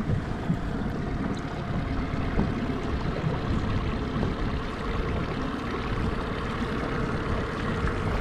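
Boat under way on a lake: a steady motor hum with water rushing and splashing along the hull.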